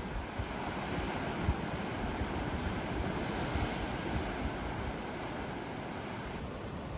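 Sea surf washing and breaking against dark rocks along a boulder shore, a steady rushing of waves, with wind gusting over the microphone.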